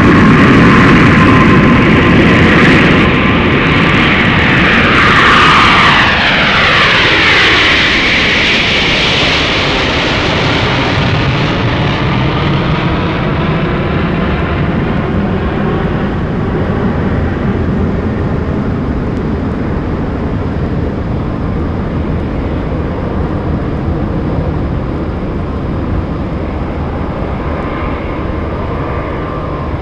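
Several sound-effects record tracks layered at once, led by an aircraft engine passing over: a loud drone whose pitch falls for several seconds from about five seconds in, then fades gradually as the aircraft moves away.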